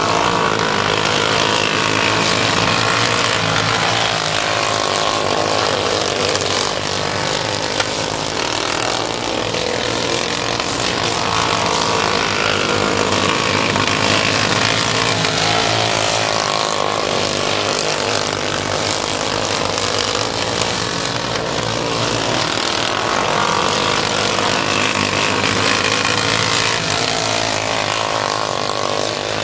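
Several modified mini dwarf race cars running on a dirt oval, their small engines revving up and down as they go round, the pitch rising and falling again and again.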